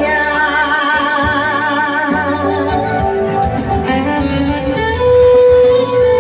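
Music: a hymn singer holds the last word of a verse with vibrato for about two seconds, then the instrumental accompaniment carries on alone, with a long steady note near the end.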